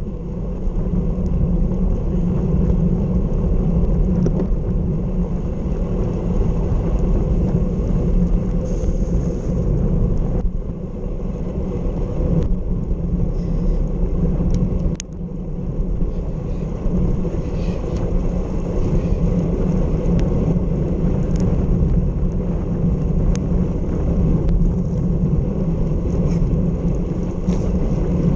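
Steady wind rush on the microphone of a bicycle-mounted camera moving at around 37 km/h, with tyre noise from the wet road and a few sharp ticks.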